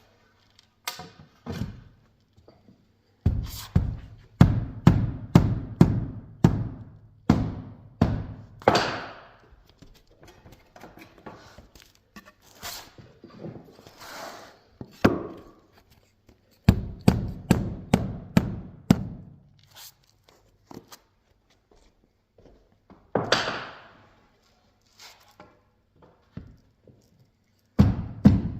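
Runs of heavy thunks, about two a second, with lighter knocks between the runs, from work on the plank floor.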